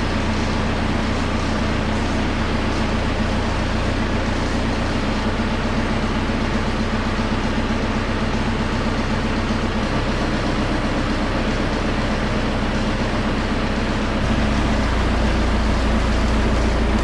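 Telehandler engine running steadily. Its note shifts about ten seconds in, and a deeper, louder hum sets in near the end as the engine speed changes.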